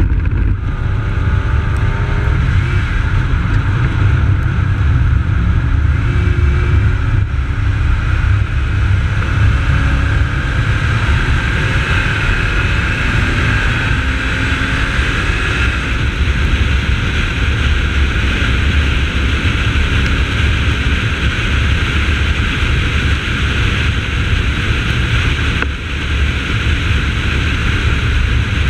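Holden VY Commodore's 3.8-litre V6 engine working hard on a race track, with heavy wind rumble on the microphone. The engine note climbs slowly as it pulls through a gear, and there is a brief drop in loudness near the end.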